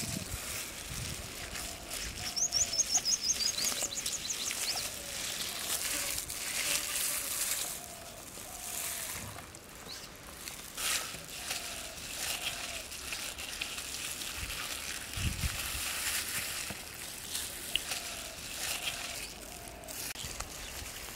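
Gloved hands rubbing and smearing a thick wet herb paste into a raw whole goat carcass, giving soft squelching and scraping. Birds call around it, with a fast, high bird trill lasting about two seconds a few seconds in.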